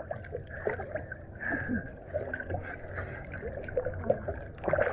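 Pool water sloshing and lapping against a waterproof camera held at the surface, with small splashes and drips.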